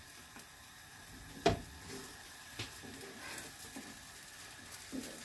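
Corned beef omelette frying in a pan with a faint steady sizzle, left on a high flame so its underside is burning. One sharp knock about a second and a half in, with a few small ticks.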